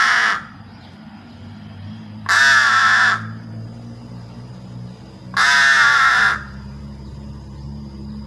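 A crow cawing: the end of one caw at the start, then two more loud caws, each under a second long with a dip in pitch at its start, about three seconds apart.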